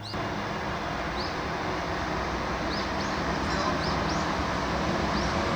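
Small birds chirping now and then, short high calls, over a steady loud rumble of outdoor noise that comes in suddenly at the start.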